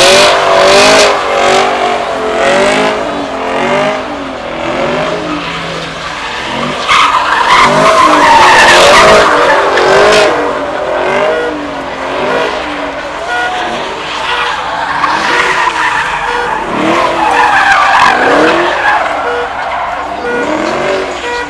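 A car doing a burnout or donuts: tyres squealing and skidding while the engine is revved up and down again and again. The squeal is loudest about a third of the way in.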